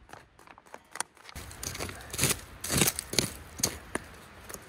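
Gear being handled: a handful of sharp rustles and clicks, mostly in the second half, over a low steady background that comes in about a second in.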